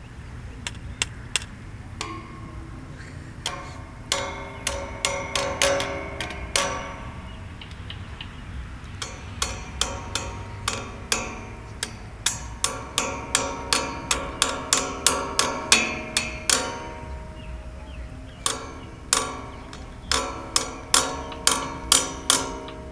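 Blue plastic toy hammer banging against a metal railing: irregular runs of sharp taps, each leaving a short metallic ring, with brief pauses between the runs.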